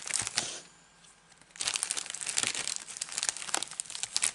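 Plastic mailing pouches crinkling as they are handled: a short burst of crinkling, a pause of about a second, then dense crinkling.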